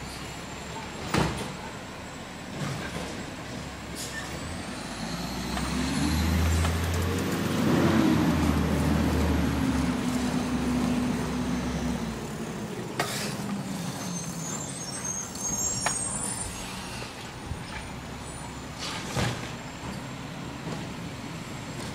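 Garbage truck's diesel engine, with its revs rising for several seconds in the middle and settling back. A few sharp knocks are also heard.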